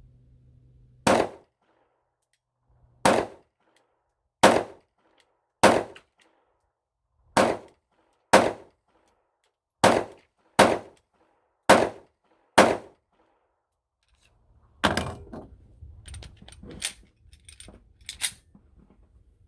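Ruger SR9C 9mm compact pistol firing ten shots at an uneven, steady pace, about one a second. After a short pause come lighter clicks and clanks.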